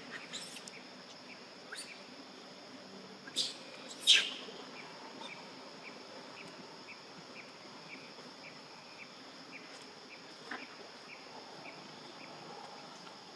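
Outdoor bird and insect ambience. A steady high insect drone runs under a short chirp repeated about twice a second, and two sharp high calls, the loudest sounds, come about three and a half and four seconds in.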